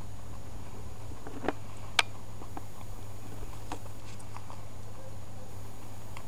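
Guinea pig nibbling lettuce seedlings: a few sparse, crisp bites of leaf, the sharpest about two seconds in, over a steady low hum.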